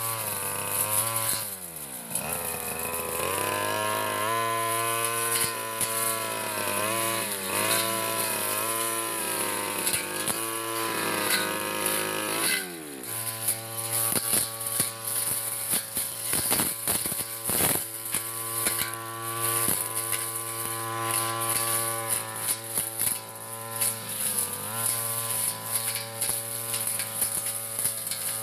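Backpack brush cutter's small engine running at high revs while its spinning cutting head mows grass. Twice, once near the start and once about halfway, the engine drops to idle and then revs back up.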